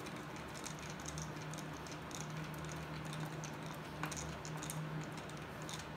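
Light, irregular clicks and taps of hands fitting a chrome fuel-tank console in place, over a steady low hum.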